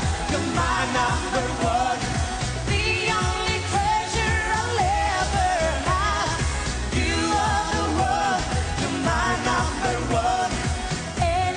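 Up-tempo Greek pop song performed live, with a woman singing lead over a steady dance beat.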